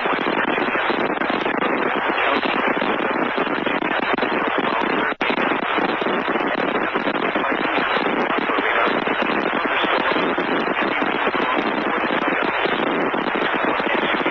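Steady radio static: a loud even hiss with fine crackling, cut by one brief dropout about five seconds in.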